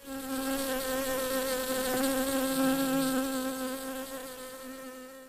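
Bee buzzing: one steady drone that wavers slightly in pitch and fades away over the last couple of seconds.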